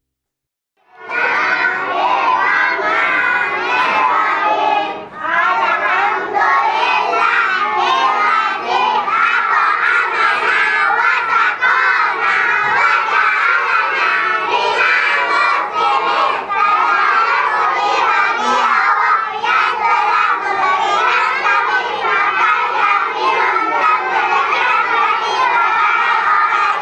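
A large group of young children's voices shouting together, loud and continuous, starting about a second in.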